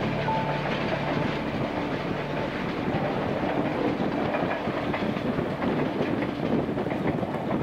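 A passenger train running along the track, with a steady noise of wheels on rails.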